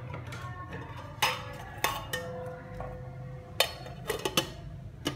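Several sharp clinks and knocks, scattered irregularly, a few leaving a ringing tone that hangs on for a second or more, over a low steady hum.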